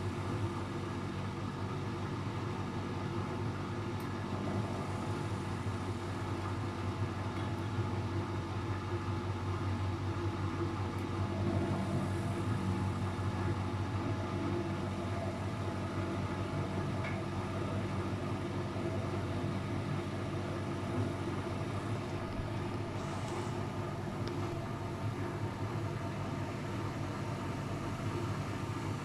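Luxor WM 1042 washing machine running with a steady motor hum.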